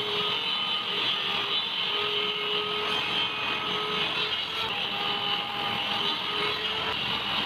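Electric power tool running steadily, a constant hiss with faint held tones that shift slightly in pitch.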